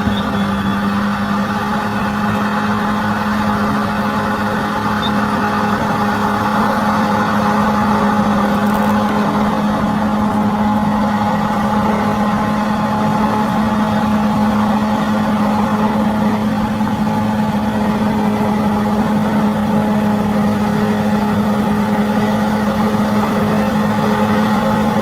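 Bulldozer's diesel engine running steadily at a constant speed, with an even hum.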